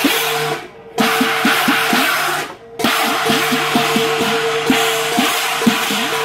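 Qilin dance percussion band: drum, gongs and cymbals playing a fast, steady beat, cut off briefly twice in the first three seconds.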